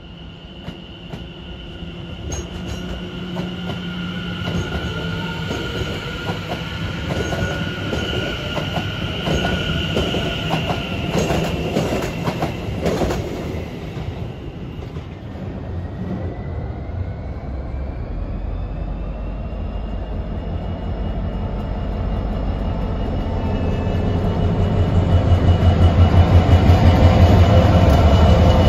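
Trains passing on the tracks: wheels squealing in steady high tones with a quick run of sharp clicks, then a whine rising in pitch about halfway through, and a heavy rhythmic wheel clatter that grows louder toward the end.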